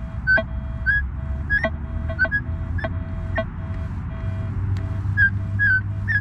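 Minelab E-Trac metal detector giving its audio target tones as the coil is swept over grass: short high beeps that jump a little in pitch, about two a second, over a lower tone pulsing at an even rate. A steady low rumble and a few sharp clicks run underneath.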